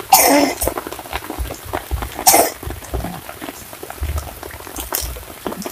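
A person coughing twice, about two seconds apart, over a steady patter of light rain.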